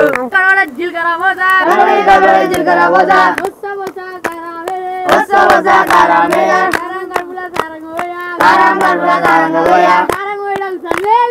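A group of boys singing a Telugu folk song together in chorus, clapping their hands in time as they sing.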